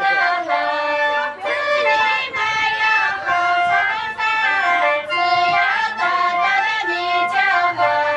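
Women singing a high-pitched song in phrases of long held notes.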